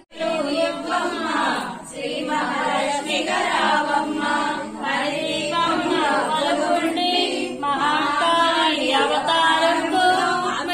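A group of women singing a devotional song together during a Lakshmi puja.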